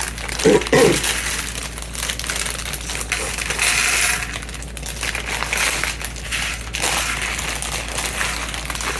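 Small plastic Lego pieces clattering and clinking against each other and a hard surface as they are poured out of their bags and spread around, with a brief louder low sound about half a second in.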